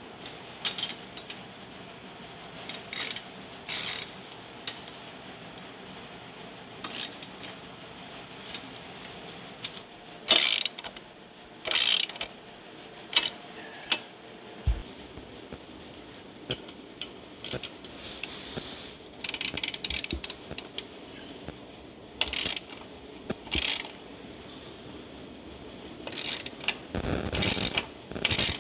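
Socket ratchet wrench clicking in short runs as the bolts of a motorcycle exhaust mount are driven in. Scattered metal clinks and knocks of tools and parts come in between, the loudest two around a third of the way in.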